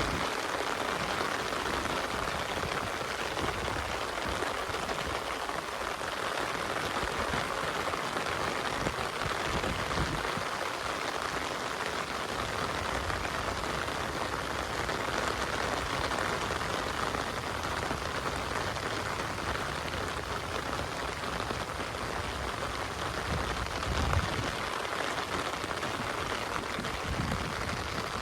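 Heavy rain falling steadily, a dense even hiss of drops on surfaces, with a brief low thump late on.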